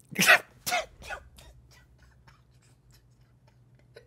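A man bursting into breathy, wheezing laughter: two loud bursts in the first second, then weaker gasps that fade away.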